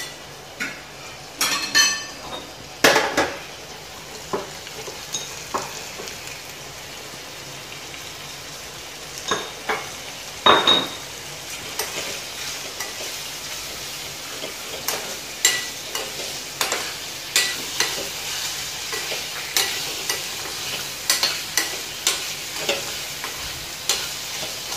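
Ice apple pieces frying in a stainless steel pan with a steady low sizzle, while a steel spoon stirs and scrapes them, clicking against the pan. A few louder knocks come in the first three seconds and about ten seconds in, and the clicks come every second or so in the second half.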